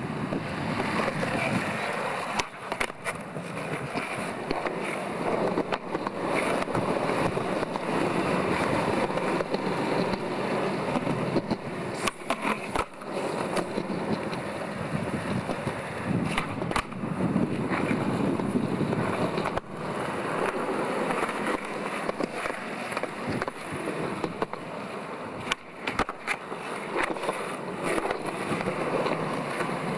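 Skateboard wheels rolling on concrete, a continuous rough rumble, with sharp clacks every few seconds as the board's tail and wheels strike the ground.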